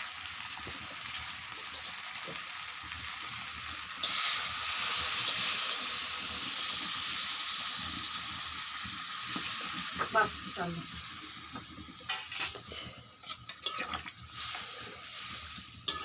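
Spiced chicken curry sizzling in oil in a pan. About four seconds in the sizzle jumps louder as water goes into the hot masala, then slowly dies down, with a few knocks and scrapes of the stirring spoon near the end.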